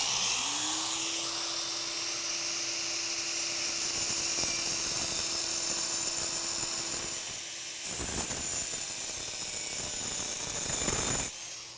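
A 4-inch angle grinder with a continuous-rim diamond blade spins up to a steady high whine and cuts a shallow groove in a concrete floor, with a dense grinding hiss. About eight seconds in the sound dips, then comes back rougher and louder, and it winds down near the end.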